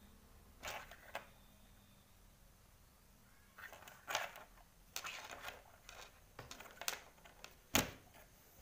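Light rustles and taps as hands move a tangled wired earphone cable around on a tabletop, in several short bursts, with one sharper click near the end.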